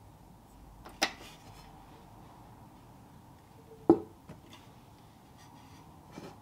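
Teaware being handled on a wooden counter: a stainless steel tea infuser and a ceramic teapot and lid, then an enamelled steel kettle. A sharp, ringing clink about a second in, a louder, duller knock about four seconds in, and a few faint taps after.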